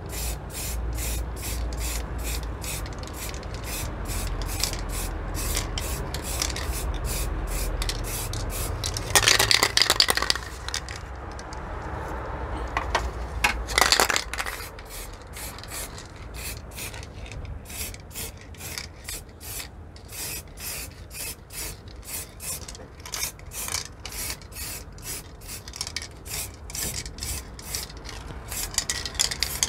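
Aerosol spray can of blue metallic paint spraying onto a plastic part in many short, rapid hissing bursts, with two longer, louder sprays about nine and fourteen seconds in.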